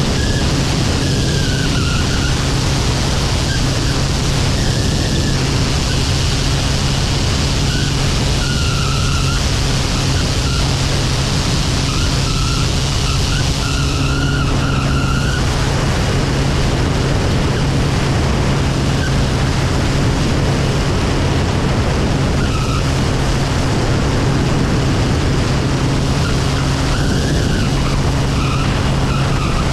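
Kodiak single-engine turboprop aircraft in cruise flight: a steady, loud propeller and engine drone with a low hum, under heavy rushing airflow noise on the outside-mounted microphone.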